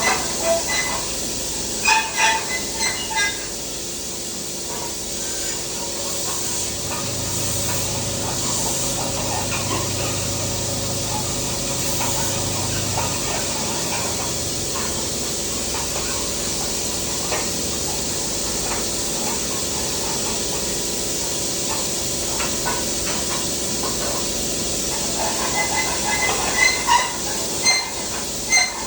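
Welding arc hissing steadily for about twenty seconds, with scattered clicks and taps just before it starts and again after it stops.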